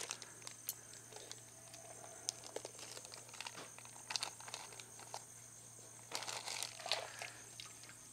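Plastic poultry shrink bag crinkling, with scattered small clicks as the air straw is pulled out and the zip tie is pulled tight around a bagged whole chicken. A faint steady low hum runs underneath.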